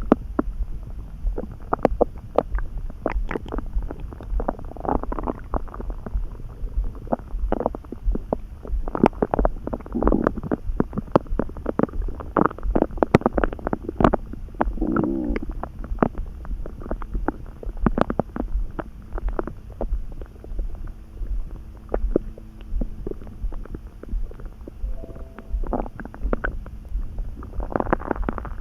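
Human stomach gurgling and rumbling, with many short bubbly pops and clicks over a low rumble and a brief pitched growl about fifteen seconds in.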